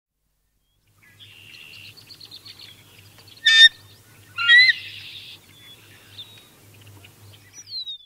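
Canada geese calling: a short, loud honk about three and a half seconds in, then a longer, louder call about a second later. Other birds chirp faintly in the distance throughout, and a high falling note comes near the end.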